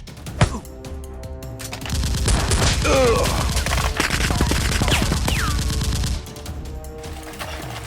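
Rapid automatic-gunfire sound effects over background music, a dense burst of shots lasting about four seconds from about two seconds in.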